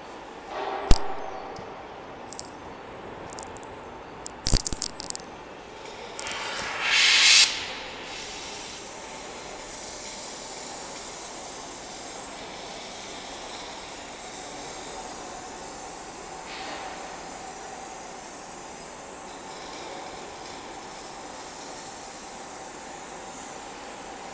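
Steady hissing background noise in a factory, preceded by a few sharp clicks and knocks and a short burst of hiss about seven seconds in.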